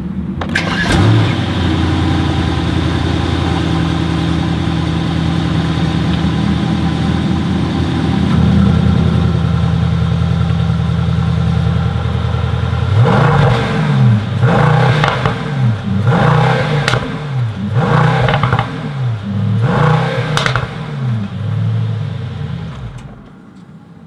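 2021 Mercedes-AMG E63 S's twin-turbo V8 starting up, with a loud flare of revs about a second in, then idling steadily through the exhaust. About halfway through it is blipped five times in quick revs, each rising and falling back to idle.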